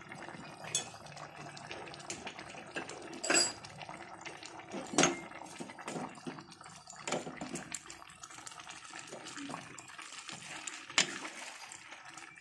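A wooden spoon stirring a thin, liquid chicken curry in a metal pot: wet sloshing and scraping, broken by a handful of sharp knocks of the spoon against the pot.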